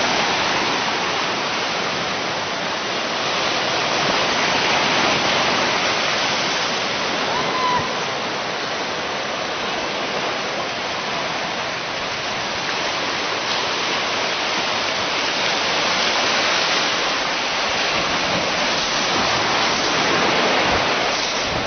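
Ocean surf washing in over a rocky shore: a steady rush of water that slowly swells and eases.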